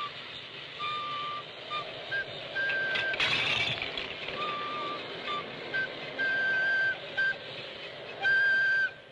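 A simple flute tune of held high notes stepping back and forth between two pitches. About three seconds in, a short clattering crash of a toy tower of stacked pieces toppling to the floor.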